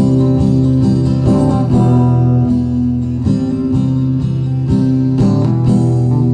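Acoustic guitar strumming chords in a steady rhythm, playing the instrumental introduction before the vocals come in.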